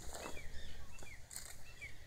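A small bird calling repeatedly in short arching chirps, about two or three a second, over a steady low rumble, with a couple of brief rustles.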